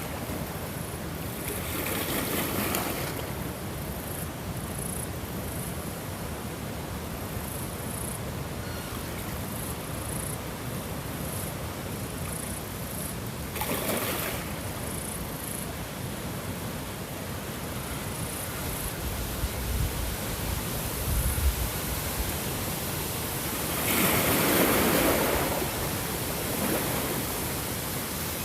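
Ocean waves washing on a shore: a steady surf with a wave surging and breaking about two seconds in, another around the middle, and a louder one near the end, with some low rumbling just before it.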